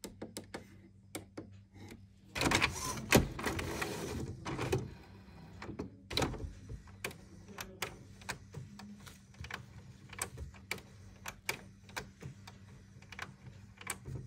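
HP Ink Tank 319 inkjet printer running a printhead cleaning cycle to purge an air bubble from the black ink line. Its carriage and service-station mechanism whirs and clicks, loudest from about two to five seconds in, then keeps up a run of separate clicks.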